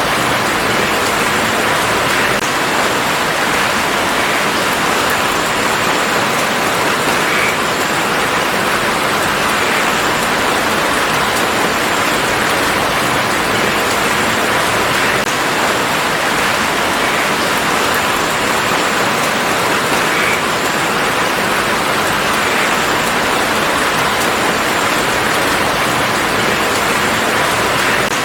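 Steady, heavy rain falling on a garden, an even dense hiss with no letup.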